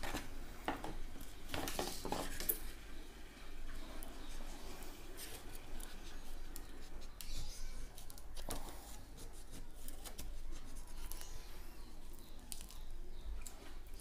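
Small knife cutting through the peel and flesh of a mosambi (sweet lime): irregular short crisp scraping and clicking strokes, busiest in the first couple of seconds.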